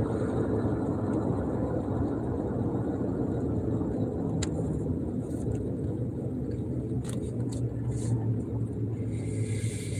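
Steady road and engine noise inside a pickup truck's cabin at cruising speed: a low, even hum with a few faint clicks.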